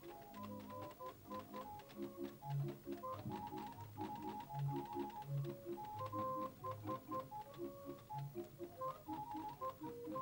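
Electronic organ playing a simple tune over an alternating bass-note-and-chord accompaniment, with faint clicks throughout.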